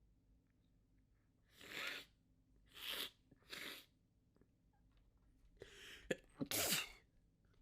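A person's sneezing fit, brought on by chhinkni sneezing powder: short breathy bursts of sneezing, three in the first half and two louder ones near the end with a sharp click between them.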